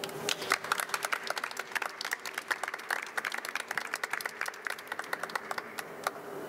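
Applause from a small group: a dense, irregular patter of handclaps that thins out and stops near the end.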